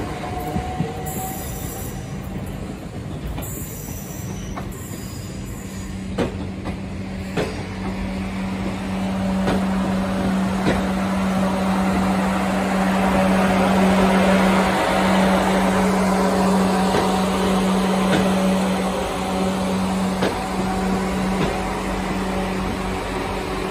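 A South Western Railway Desiro electric multiple unit rolling past on the platform road, with a steady electric hum, a few sharp clicks as its wheels cross rail joints, and rolling noise that swells and then eases as it goes by. In the first second, the rising motor whine of another train pulling away fades out.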